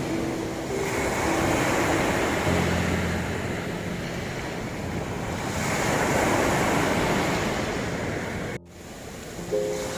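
Ocean surf washing on a shore, its rush rising and falling in slow swells, with a few soft low piano notes held about two and a half seconds in. A little over eight and a half seconds in, the sound drops out abruptly and then comes back.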